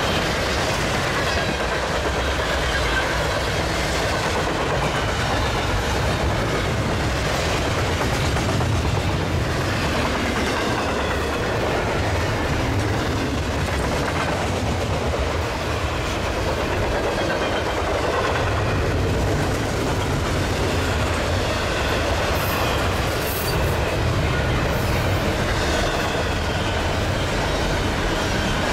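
Union Pacific double-stack container freight train rolling past: a steady rumble and clatter of steel wheels over the rail joints.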